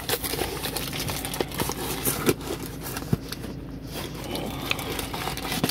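Cardboard box of wrapped granola bars being opened and handled: a busy run of irregular crinkles, scrapes and clicks.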